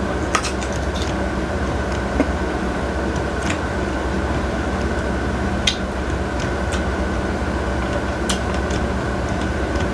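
Steady mechanical hum of a running appliance such as a room fan, with a few short, sharp mouth clicks every couple of seconds from chewing a mouthful of mango.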